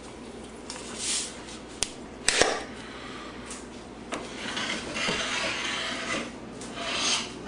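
Kitchen handling sounds while salt is added to water for a fish brine: a sharp click and a knock about two seconds in, and stretches of scraping, rustling hiss.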